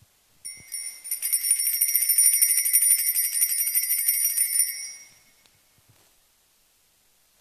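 Altar bells shaken rapidly, a bright high-pitched jingling that runs about four seconds and then dies away.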